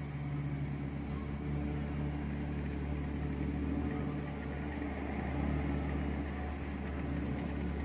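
Car engine running at low speed, heard from inside the cabin as a steady low hum.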